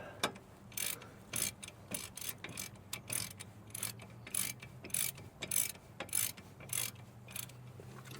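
Hand ratchet wrench being swung back and forth to run down a nut, its pawl clicking in short bursts about twice a second, over a faint low steady hum.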